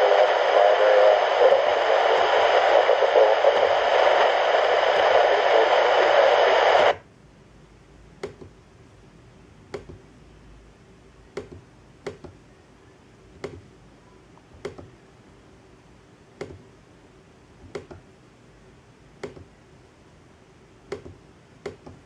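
Handheld radio scanner's speaker giving a loud, steady hiss of static, which cuts off suddenly about seven seconds in as the squelch closes. After that there is only a faint background with short clicks about every second and a half.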